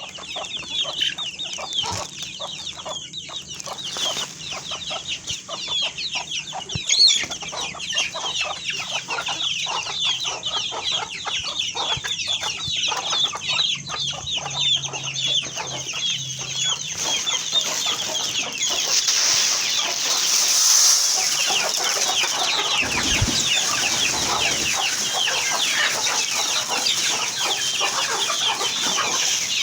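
A large flock of chickens in a poultry house calling all at once, countless short high calls overlapping into a continuous din that grows denser about halfway through, over a faint low hum.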